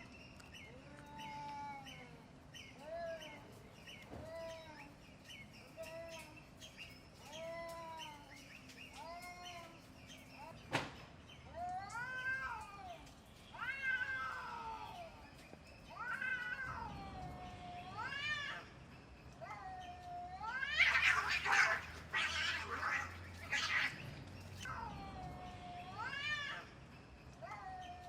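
Cats yowling at each other in a fight standoff. Short rising-and-falling cries grow into longer, louder wavering howls, broken by harsh screeching outbursts about two-thirds of the way through and again at the very end. A single sharp click comes near the middle.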